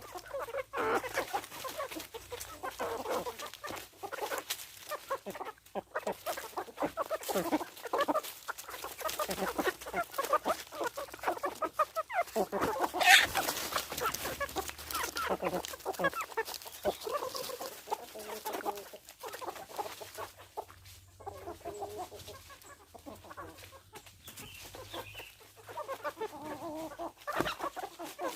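A flock of Indonesian village chickens (ayam kampung) clucking continuously, many birds calling over one another, with a brief loud sharp sound about halfway through.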